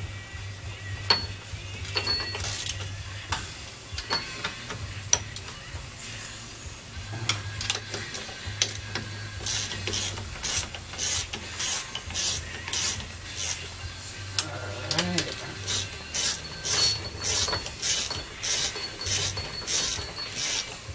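Hand ratchet wrench clicking as bolts are run in. There are a few scattered clicks at first, then a run of short ratcheting strokes at about two a second through the second half, over a low steady hum.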